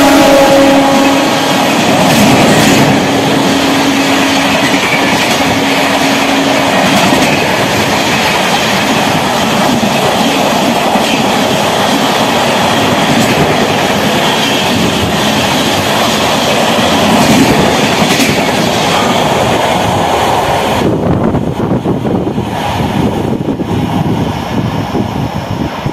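Passenger train of LHB coaches behind an electric locomotive passing at speed, a loud steady rush of wheels on rail, its horn still sounding for the first several seconds after dropping in pitch as the locomotive goes by. About 21 seconds in the last coach clears and the sound falls away to a fainter rush.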